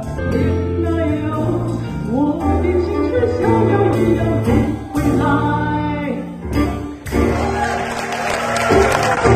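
Live jazz band playing an instrumental passage of a song, with melody lines over a steady bass; about seven seconds in, a bright wash fills out the upper range.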